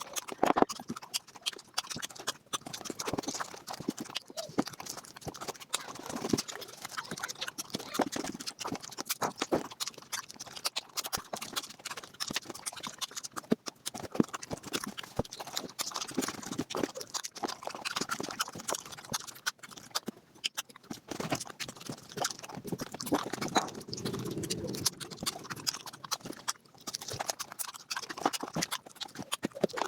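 Eating sounds sped up fivefold: wet chewing, smacking and crunching squeezed into a dense, unbroken patter of rapid clicks.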